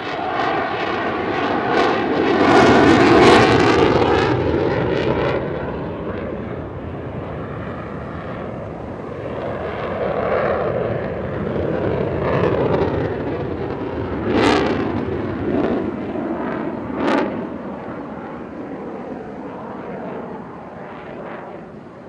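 RAF Eurofighter Typhoon flying a display with afterburners lit, the roar of its two EJ200 turbofan engines loudest and rippling in pitch a few seconds in, then settling to a steadier roar. Two sharp cracks come about three seconds apart in the second half.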